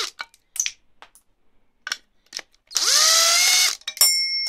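Cordless drill with a socket spinning out small bolts from a timing-cover shield. The motor whines, rising in pitch for about a second near the end, with small clicks in between, then a sharp metallic clink that keeps ringing.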